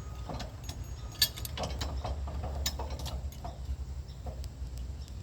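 Metal clicks and clanks of sawmill log stops being slid over and set against a log, with one sharper clank about a second in, over a steady low rumble.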